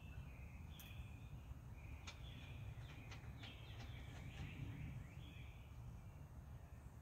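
Small birds chirping in short, gliding calls, busiest in the middle, over a steady low rumble, with a few faint clicks among them.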